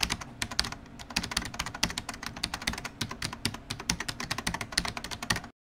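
Rapid, irregular typing on a computer keyboard, many keystrokes a second. It cuts off suddenly near the end.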